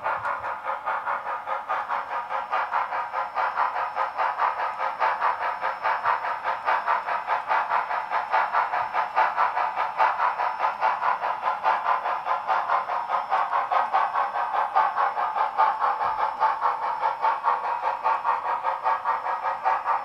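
HO-scale model steam locomotive No. 1677 running with its onboard sound playing a steady, quick, even steam-chuff beat. It comes thin and tinny through the model's small speaker.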